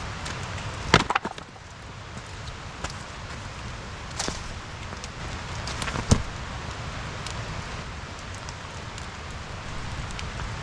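Steady rain falling, with a few sharp wooden cracks and knocks from firewood at an outdoor campfire. The loudest come about a second in and again a little past halfway.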